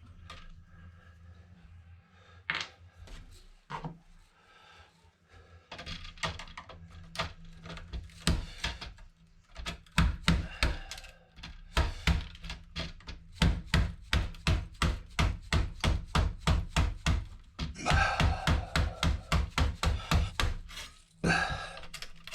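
A freshly sharpened blade tool working pins off a clamped scrap motherboard. A few scattered sharp knocks at first, then fast runs of sharp knocks, about five a second, with a stretch of scraping a few seconds before the end.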